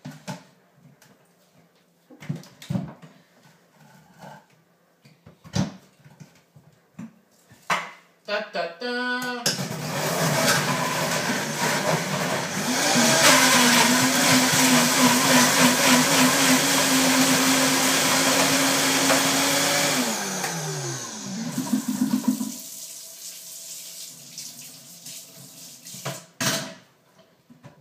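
Vitamix blender blending a thick avocado, tomato and hemp-seed dressing: a few scattered knocks, then about nine seconds in the motor starts and runs loud for about eleven seconds, speeding up a few seconds after starting, before winding down with a falling pitch.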